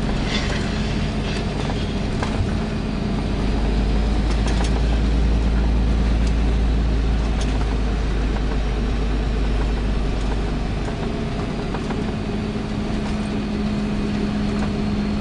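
A motor vehicle on the move: a steady engine and road rumble that grows louder for several seconds in the middle, with a constant low hum.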